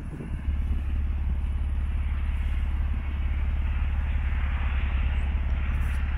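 Steady low rumble that sets in about half a second in and holds, with a faint hiss above it.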